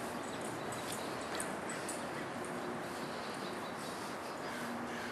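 Steady outdoor background hiss with a few faint, light clicks in the first couple of seconds.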